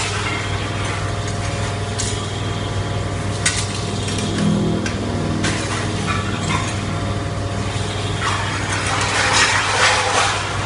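Copper baler running: a steady machine hum with scattered sharp metallic clinks and knocks, growing busier and noisier near the end.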